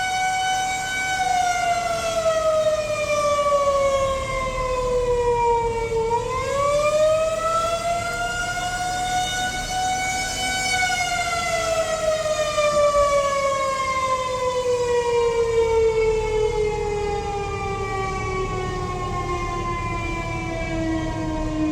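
Federal Signal 2001-130 rotating electromechanical outdoor warning siren sounding a test. Its single tone falls, dips about six seconds in and climbs back up, then glides slowly down in pitch through the rest.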